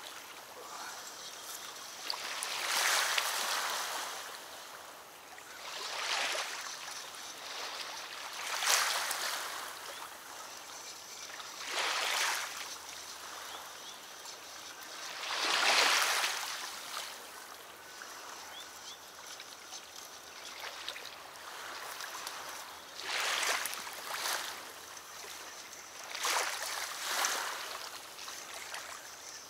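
Small waves lapping and splashing at a reedy riverbank, a soft rushing swell about every two to four seconds over a steady watery hiss.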